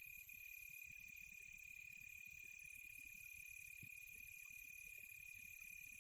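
Faint rural ambience: a steady, unbroken high-pitched insect chorus, with a low rumble underneath.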